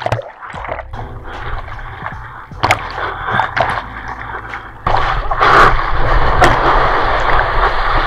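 Seawater splashing and gurgling over a surfboard-mounted action camera as the board goes under and through the waves. About five seconds in it turns into a loud, steady rush as broken whitewater washes over the board.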